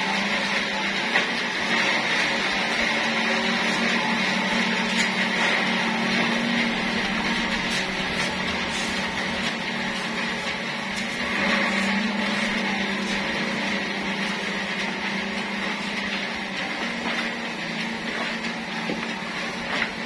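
Band sawmill machinery running steadily with a constant hum and whine, not cutting. Scattered short scrapes come from sawdust being brushed and scraped off the carriage and floor.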